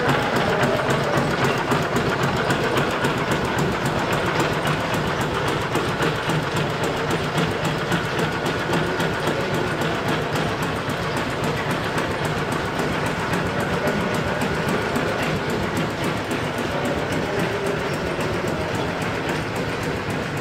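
Belt-driven shop machinery running off overhead line shafts and pulleys, with a steady, rapid mechanical clatter.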